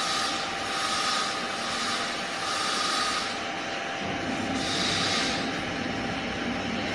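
Automatic chapati/roti making machine running at its baking oven: a steady mechanical running noise with a constant high whine and a hiss that swells and fades every second or two.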